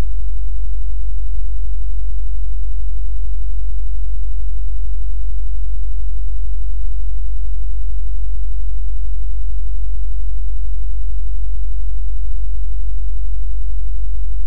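A steady, loud, low electrical hum with no other sound. It does not change throughout.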